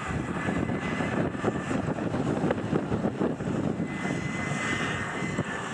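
Airbus A320's twin jet engines running loud on the runway during its landing roll-out, a crackling rumble with a thin steady whine above it. The noise grows louder right at the start.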